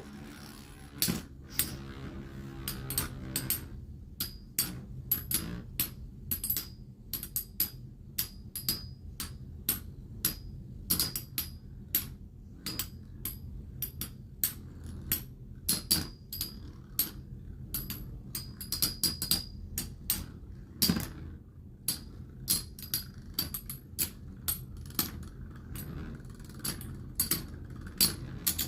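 Two Metal Fight Beyblade spinning tops clashing in a stadium: repeated sharp metallic clacks, irregular and a few a second, each with a light ringing, over the low steady whir of the spinning tops.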